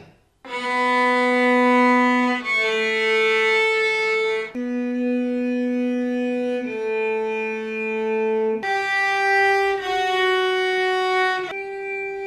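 Cellos, two acoustic and one electric, bowing long sustained notes together, each held about two seconds. The notes rock back and forth between two neighbouring pitches, and about eight and a half seconds in the pair moves higher.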